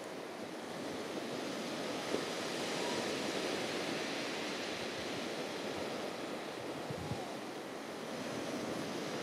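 Sea surf washing steadily on a shingle or sand beach, with some wind on the microphone.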